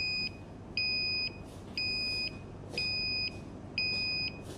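Electronic buzzer on an autonomous planting robot beeping about once a second. Each beep is a steady high tone about half a second long.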